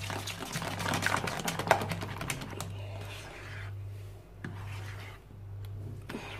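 Plastic whisk beating thick pastry cream in a small stainless-steel saucepan: rapid, irregular clicking and tapping against the pan, busiest in the first three seconds, over a low steady hum.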